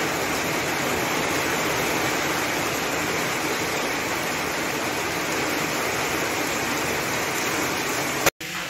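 Heavy rain pouring steadily onto a flooded paved courtyard, an even hiss of drops splashing into standing water. It cuts off suddenly near the end.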